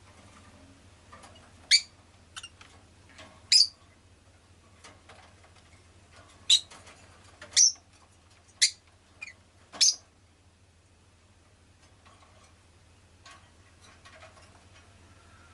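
Rosy-faced lovebird giving short, sharp chirps, about eight of them in the first ten seconds, then only faint sounds, over a low steady hum.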